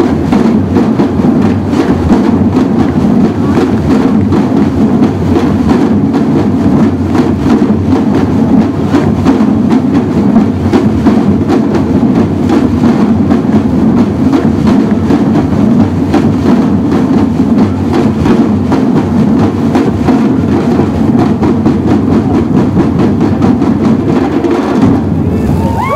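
Samba batucada: a large drum group plays surdo bass drums and smaller snare drums together in a loud, dense rhythm, cutting off together near the end.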